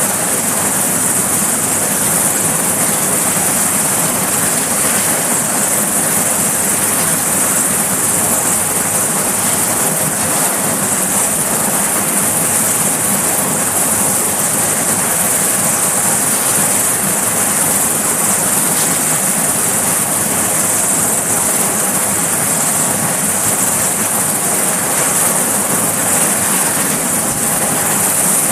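Sikorsky S-61 helicopter running on the deck with its rotors turning: the steady, unchanging din of its twin turboshaft engines and rotors, dominated by a strong high-pitched hiss.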